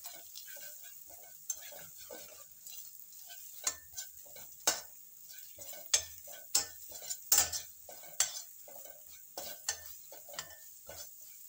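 A spoon stirring onion paste and freshly added ground spices as they fry in hot oil in a pan: a light sizzle under irregular scrapes and knocks of the spoon against the pan, the sharpest knocks coming through the middle.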